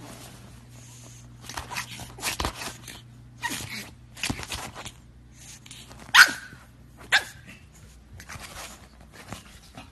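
A pug barking and vocalizing in short bursts, with the two sharpest barks about six and seven seconds in.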